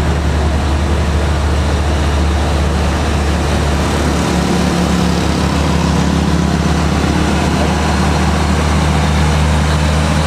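Heavy diesel truck engine running under load as the truck climbs a steep grade: a steady, deep drone whose note changes about four seconds in.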